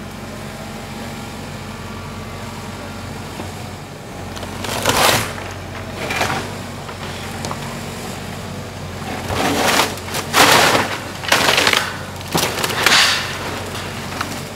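Heavy demolition equipment runs steadily as the wooden frame of a house is torn down. There is a crash of breaking and falling lumber about five seconds in, and a run of several crashes in the last five seconds.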